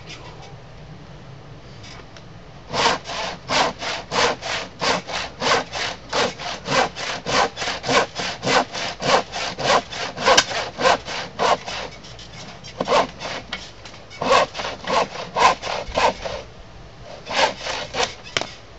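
Handsaw crosscutting through the end of a wooden workbench top. It makes a fast run of rasping strokes, about three a second, with two brief stops, then a last few strokes near the end as the cut finishes.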